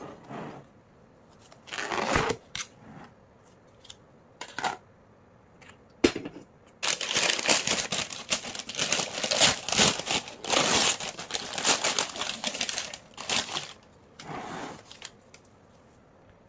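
Kitchen handling noises: irregular rustling and crinkling with light clicks and knocks. The busiest, densest stretch starts about seven seconds in and lasts several seconds.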